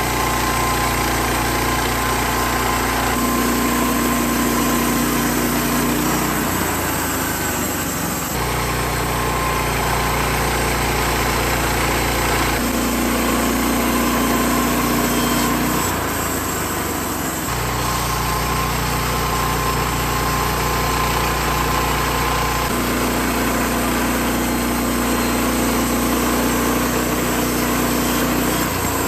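Norwood LM30 portable sawmill running, its engine driving the band blade through pine being sawn into 4x4s. The engine runs steadily, and its sound shifts every several seconds as the cuts are made and the head returns.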